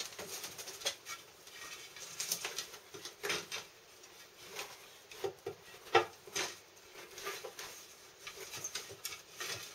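Flower pots being set and pushed in among other pots on a wooden shelf: irregular knocks and scrapes of pot against pot and wood, with the bare pruned twigs rustling and scratching against each other. The loudest knock comes about six seconds in.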